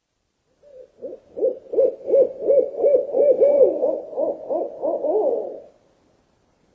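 An owl giving a rapid run of low hoots, about three a second, starting about half a second in and stopping after some five seconds.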